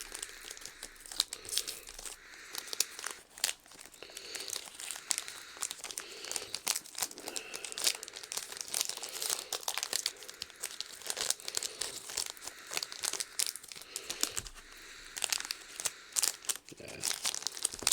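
Trading card booster pack wrappers crinkling and tearing as packs are opened and handled, with a continuous irregular crackle and scattered sharp clicks.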